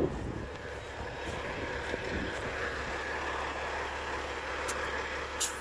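Compressed air hissing steadily through an air chuck into a trailer tire as it is aired up, with two short sharp clicks near the end.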